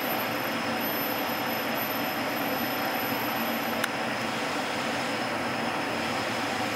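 Steady kitchen ventilation noise with a faint high steady whine, and a single light click about four seconds in.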